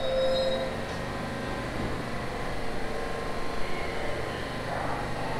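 R46 subway train standing at the platform, its onboard equipment giving a steady hum with a few faint steady tones.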